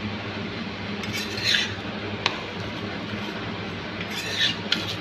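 A utensil scraping across a hot iron tawa twice, about a second in and again near the end, as a stuffed aloo paratha is shifted on the dry griddle. There are two sharp metal clicks between and after the scrapes, over a steady hiss.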